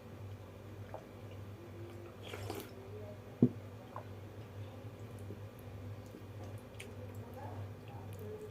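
A person chewing close to the microphone: soft wet squishing and small clicks of water rice and fried food being eaten, over a steady low hum. A single sharp knock about three and a half seconds in is the loudest sound.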